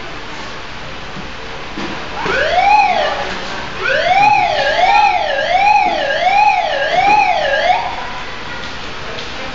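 Electronic siren on a children's play fire truck: one rising sweep about two seconds in, then a quick up-and-down wail about five times, roughly one cycle a second, stopping about eight seconds in.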